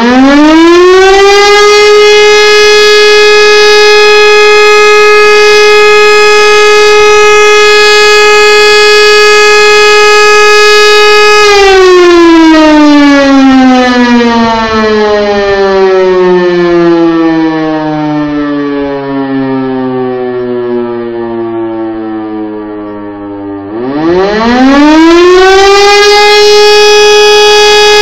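E57 electromechanical rotary siren during a test. It winds up to a steady wail, holds it about twelve seconds, then winds down as the rotor coasts for about twelve seconds, and spins back up to the full steady tone about 24 seconds in.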